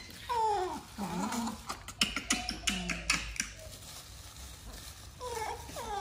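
A baby macaque calling in short cries that slide down in pitch, several near the start and again near the end, with crinkling of a plastic bag in the middle as roasted bananas are taken out of it.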